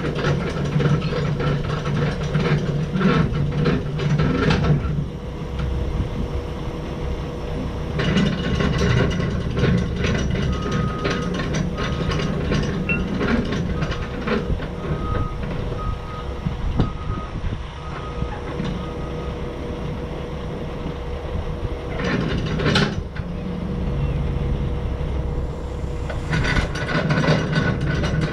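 Heavy machinery running with a steady low rumble, over repeated metal clanking and rattling. In the middle comes a run of evenly spaced single-pitch beeps, like a reversing alarm, and there is one sharp bang a few seconds before the end.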